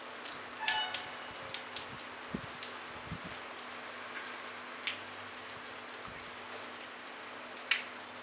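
Light, gentle rain falling steadily as an even hiss, with scattered louder drops ticking close by. A short high-pitched note sounds about a second in.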